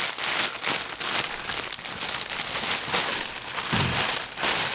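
Plastic packing material crinkling and crackling as a package is handled and unwrapped by hand, in a dense run of irregular rustles.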